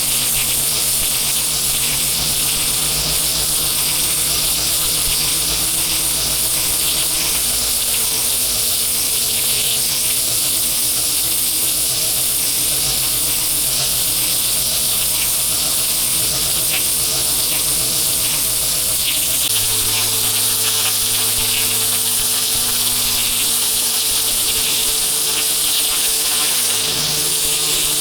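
Pressure washer running continuously: the steady hum of its motor and pump under the hiss of the high-pressure water jet spraying the paving. The machine's note shifts about twenty seconds in.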